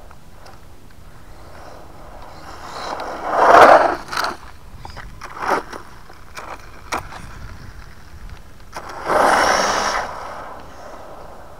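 Electric 4x4 RC truck running on asphalt: two loud passes of tyre and drivetrain noise, the louder about three and a half seconds in and another about nine seconds in, with several sharp clicks and knocks between them.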